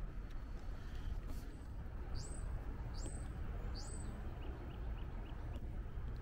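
A songbird calling three times, each call a quick sweep sharply upward to a high note, about a second apart, followed by a few short, fainter chirps. A low background rumble runs under it.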